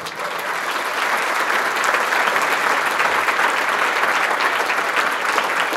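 An audience applauding, a dense steady clapping that swells during the first second and carries on.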